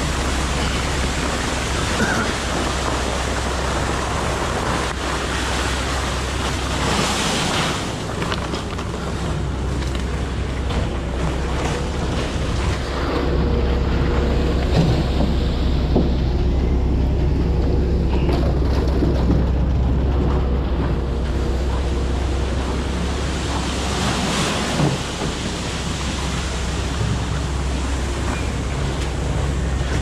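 Concrete mixer truck's diesel engine running steadily, with a rushing wash of wet concrete coming down the chute over it.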